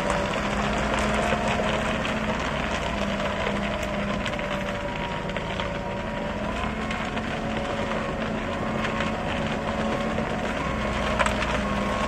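Ajax self-loading concrete mixer's diesel engine running steadily with a slightly wavering hum, under continual crackling and rattling from the machine.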